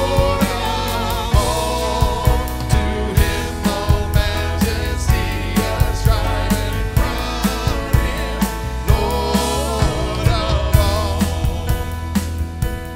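Live worship band playing a hymn-style song: singers over keyboard and an electronic drum kit keeping a steady beat.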